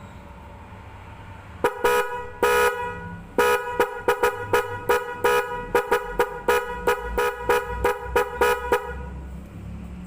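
A pair of original Honda GL100 round 'bakpao' electric horns (Mitsuba UH and UL) sounding together, loud and shrill. It starts about two seconds in with three longer honks, then a quick run of short toots about two or three a second, which stops about a second before the end.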